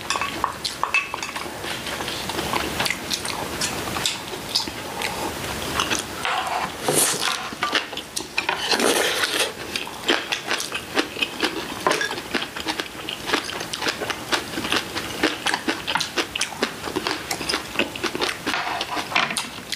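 Two people eating with chopsticks: chewing, sipping soup from small cups, and chopsticks clicking against ceramic plates and bowls, in a dense run of short clicks and crackles with a few brief slurps.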